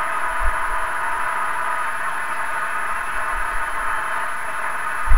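Vacuum-tube Hammarlund SP-600 receiver's speaker giving out a steady rush of static band noise with no station coming through: the sporadic-E skip has faded out. A soft low bump comes about half a second in and another right at the end.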